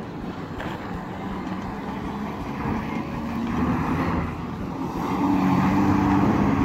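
Road traffic passing through a busy intersection: trucks and a minibus running past, with a low engine drone that grows louder about five seconds in.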